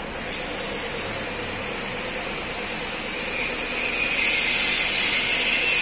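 Steady mechanical running noise with a strong hiss and a faint steady hum, growing louder about three seconds in.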